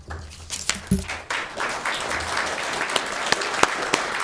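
A small group applauding with hand claps, starting up about half a second in and building to steady clapping.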